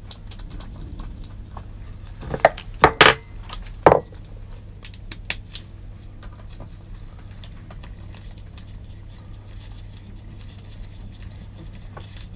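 Small metal parts clinking and tapping against a diesel cylinder head as an injector and its clamp bracket are fitted by hand: a few sharp clinks two to four seconds in, then light scattered ticks, over a steady low hum.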